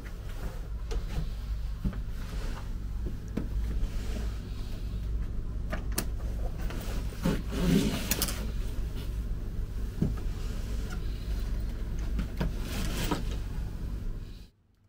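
Steady low rumble of a boat engine on a canal, with scattered knocks and clicks over it. The sound cuts off suddenly near the end.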